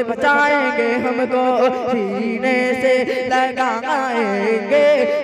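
A young man singing a naat (devotional Urdu hymn) into a microphone, one voice drawing out long, wavering held notes.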